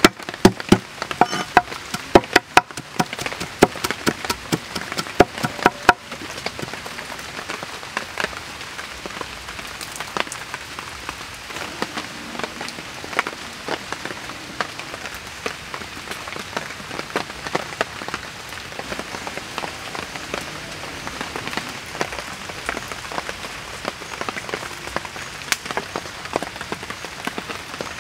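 Knife chopping garlic on a wooden cutting board: quick, sharp knocks that stop about six seconds in. After that, a steady light patter of fine clicks.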